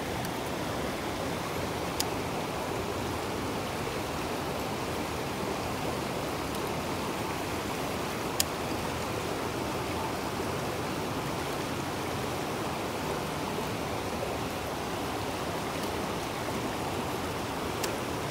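Fast-flowing river in high water, rushing steadily. Three faint, sharp ticks stand out, one about two seconds in, one in the middle and one near the end.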